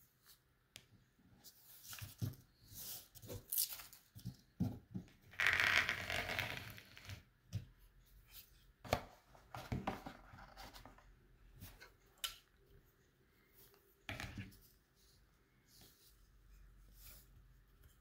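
Hands handling kitchen knives and a knife box on a plastic cutting board: scattered taps, clicks and knocks. A louder rustling scrape lasts about a second and a half, a little over five seconds in.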